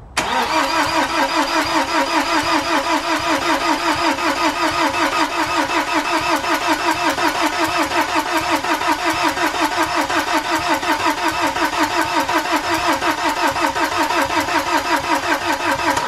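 BMW N47 four-cylinder diesel being cranked by its starter motor without firing: an even, rhythmic churning that cuts off abruptly at the end. It fails to start because the battery is flat and the fuel system is empty and still being primed after the timing chain replacement.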